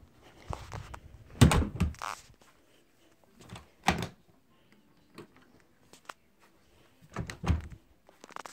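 A door shutting with a thud about a second and a half in, followed by a few more knocks and bumps, another heavy one around seven seconds in.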